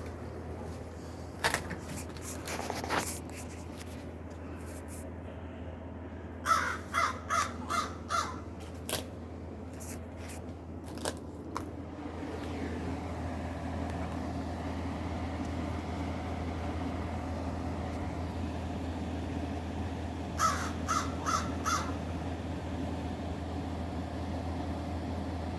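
Outdoor air-conditioner unit running with a steady low hum that grows fuller about halfway through. A bird calls in two short runs of four or five harsh calls, and there are a few clicks in the first few seconds.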